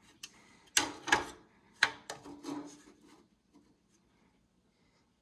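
Metal parts of an Antminer L3+ crypto miner being handled as its cooling fan is fitted back onto the case: three sharp knocks in the first two seconds, then a few softer scrapes and clicks.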